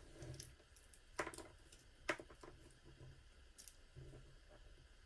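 Faint handling noise of small doll accessories and a mesh drawstring bag: soft rustles and a few light clicks, the sharpest about a second in and again about two seconds in.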